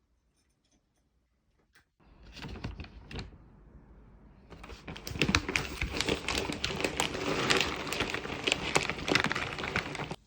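Rapid, irregular clicking and tapping that starts suddenly about two seconds in, grows dense and loud halfway through, and cuts off abruptly near the end.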